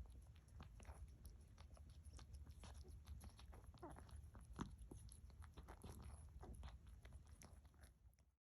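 Faint wet mouth sounds of a mother cat licking and chewing at birth: irregular clicks and smacks over a low steady hum, with a faint short squeak about four seconds in. The sound cuts off just before the end.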